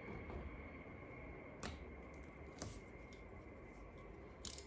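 Vinyl wrap film being cut and worked by hand around a car door handle: a few short, light clicks and crackles against quiet room noise.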